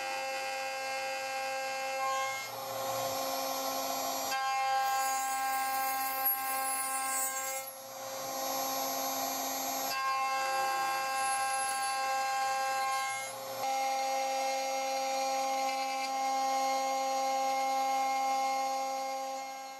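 CNC router spindle running with an end mill milling aluminium: a steady high whine with the rasping noise of the cut over it. The sound shifts abruptly several times as the cut changes.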